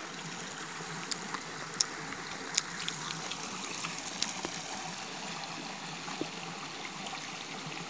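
Small stream running, a steady rush of flowing water, with a few sharp clicks in the first half.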